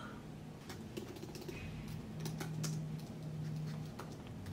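Typing on a slim computer keyboard: irregular key clicks starting about a second in, over a low steady hum.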